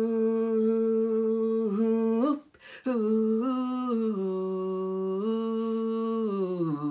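A man singing unaccompanied, holding long wordless 'ooh' notes of a cowboy yodel refrain. One long note bends up and breaks off about two and a half seconds in. After a breath, a second long note steps up and down in pitch and slides downward near the end.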